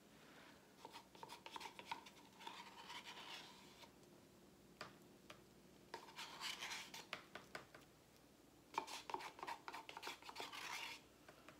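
Quiet scratchy rubbing and scraping with small clicks, in three bursts of a couple of seconds each, from gloved hands handling things on a plastic-covered work table.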